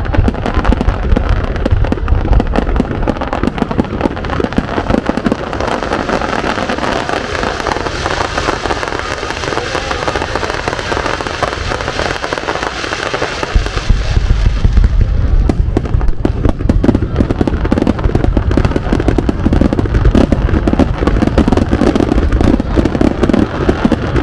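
Fireworks going off: continuous dense crackling, joined by heavy low booms from about halfway through.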